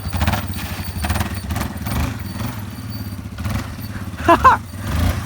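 Yamaha Raptor 350's single-cylinder four-stroke engine running at low revs, a steady pulsing rumble. A brief high-pitched wavering sound cuts in a little after four seconds.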